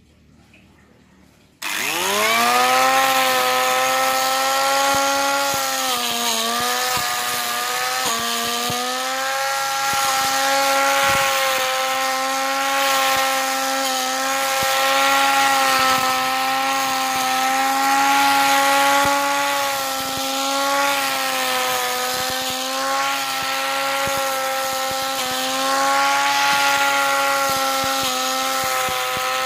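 Electric angle grinder, converted into a grass cutter with a bar blade, switched on about two seconds in. It spins up quickly to a high steady whine, then runs on at speed while cutting grass, its pitch sagging slightly now and then.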